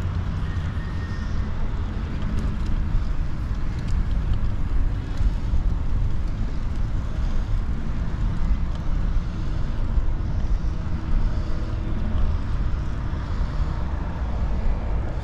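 Wind buffeting a chest-mounted action camera's microphone while riding a road bike: a steady, heavy low rumble with an even rushing noise over it.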